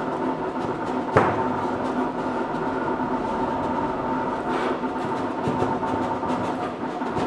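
Summa vinyl cutting plotter running a cut: the motors driving the cutting head and the vinyl whir steadily with a high hum. A short, sharp sound that drops quickly in pitch comes about a second in.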